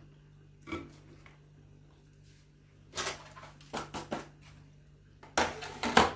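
A few knocks and scrapes of kitchen containers and utensils being handled, with a louder cluster near the end.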